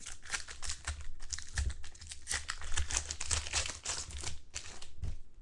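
Crinkling of trading-card pack wrappers and plastic packaging being handled and opened, a dense, irregular crackle that keeps up throughout.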